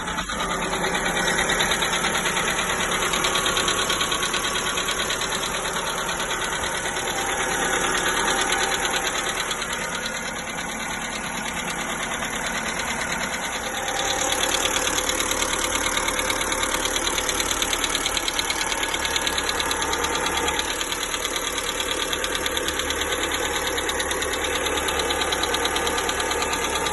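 1.4 MPI petrol engine idling on a cold start with a fast, even ticking knock. The ticking has survived new hydraulic lifters, new rocker arms and several oil changes, and its cause is still unknown to the owner.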